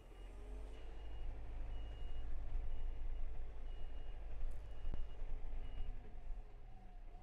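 Reversing alarm beeping steadily, about once a second, over a diesel compact tractor's engine running and changing pitch as it moves a load on its pallet forks. A single knock about five seconds in.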